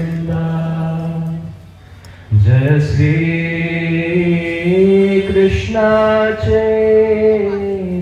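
A man's amplified voice chanting a devotional kirtan in long held, sliding notes. It breaks off for a moment about two seconds in, then goes on.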